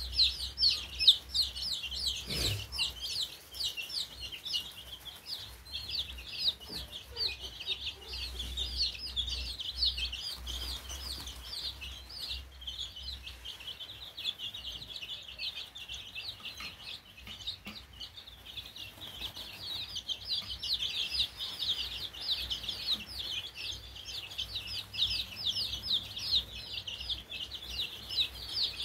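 A flock of young chicken chicks peeping without pause, many short high-pitched cheeps overlapping.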